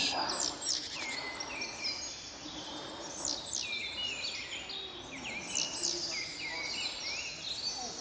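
Small woodland songbirds calling around a feeding spot: many short, high chirps overlapping one another throughout, several of them sweeping down in pitch.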